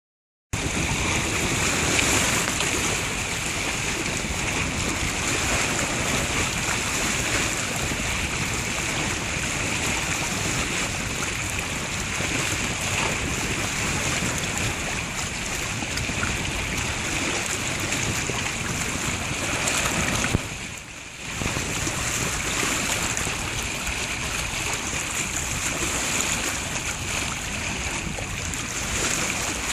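Steady wind and water noise on open water, even and unbroken except for a brief drop about two-thirds of the way through.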